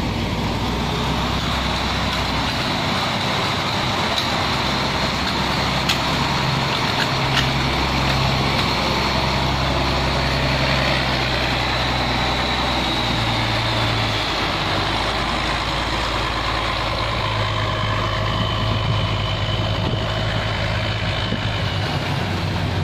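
Inboard engine of a wooden towing boat running steadily as it passes close by, its propeller churning the water. The engine note shifts about midway through.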